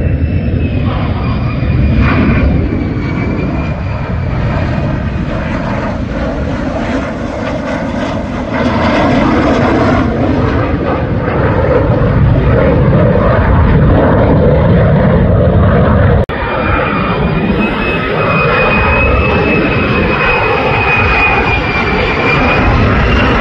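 F-35 fighter's single Pratt & Whitney F135 jet engine on a low, gear-down approach: a loud, steady roar with a thin high whine over it. The sound drops out for an instant about two-thirds through, then resumes.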